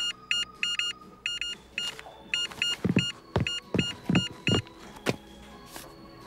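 Cash register keypad beeping as keys are pressed: about fifteen short, same-pitched electronic beeps in quick irregular runs, with a few dull knocks from the keys among the later ones. The beeping stops about two thirds of the way in.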